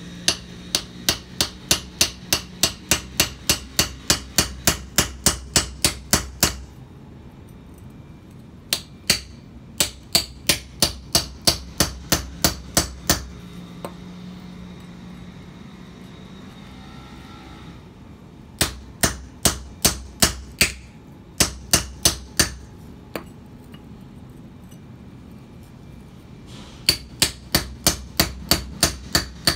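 A hammer drives a mason's chisel into a stone block to cut it, about three sharp strikes a second. The blows come in four runs of several seconds each, with short pauses between them.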